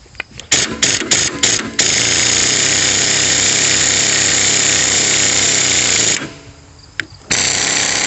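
Air impact wrench hammering, turning the adjuster rod that brings a forage chopper's cutter bar closer to the knife. It starts with several short bursts, then runs continuously for about four seconds, pauses about a second, and ends with one more burst of about a second.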